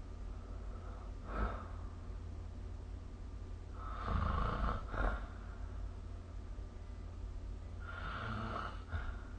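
Person snoring in their sleep: a short noisy breath about a second in, then two longer snores, one around the middle and one near the end, each closing with a brief second burst. A steady low hum runs underneath.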